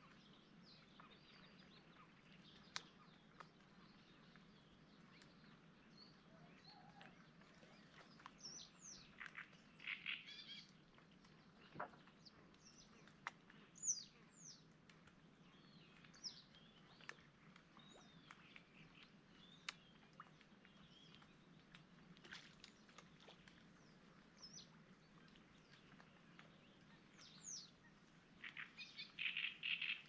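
Wild birds chirping and calling at intervals, faint overall: short falling whistles and a few quick rattling runs of notes, the busiest run near the end, with a few sharp clicks between them.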